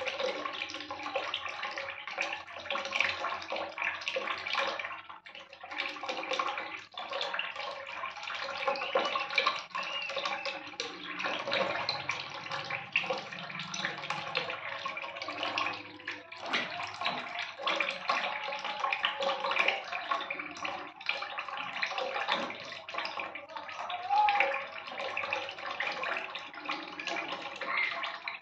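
Water running and splashing steadily into a basin of water.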